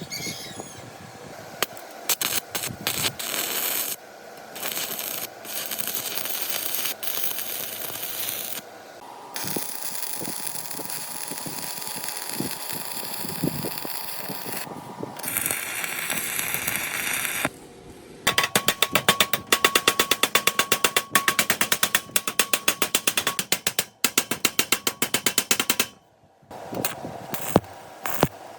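Mechanical workshop sounds of tool work on metal parts, changing abruptly several times. About two-thirds of the way in comes a fast, even run of clicks with a steady tone beneath, which stops suddenly.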